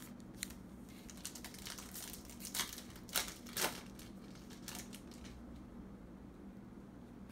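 Plastic wrapper of a 2020 Topps Update Series baseball card pack crinkling as it is torn open: a run of short rustles, with the three loudest crackles between about two and a half and four seconds in.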